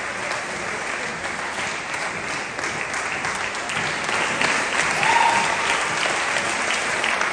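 Audience applauding steadily, with a short call rising above the clapping about five seconds in.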